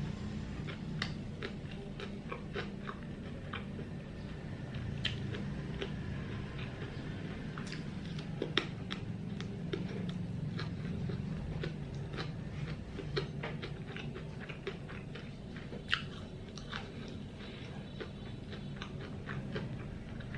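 Close-miked chewing of fresh shrimp-and-pork spring rolls in rice paper: soft wet mouth sounds with many small irregular clicks and smacks. A steady low hum runs underneath.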